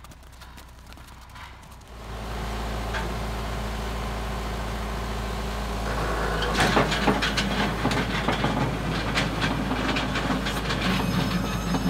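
About two seconds in, a John Deere 6410 tractor's diesel engine starts to be heard running steadily. From about six seconds in it gets louder, with a dense crackling clatter as the rear box blade scrapes through ice and mud.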